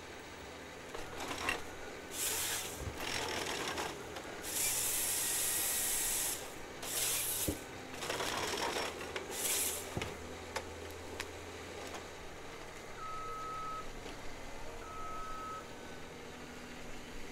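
A forestry machine running with a low steady hum, broken by repeated hisses; the longest lasts nearly two seconds. Two short electronic beeps come near the end.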